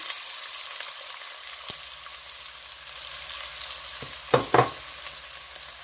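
Chopped onion frying in hot oil in an aluminium dekchi, a steady sizzle. A few short knocks come about four seconds in.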